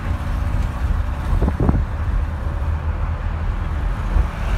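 Steady low engine and road rumble of a bus driving at highway speed, heard from inside the cabin. A brief rising squeak comes about a second and a half in.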